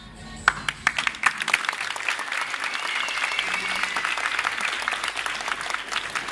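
Audience applauding: a few separate claps about half a second in, quickly building into steady applause.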